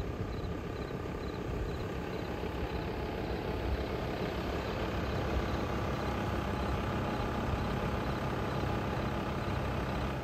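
A campervan's engine running at low speed as the van pulls up and comes to a stop, then idling steadily.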